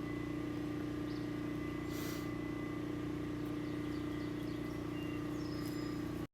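A steady low hum, with a few faint, short high chirps near the end.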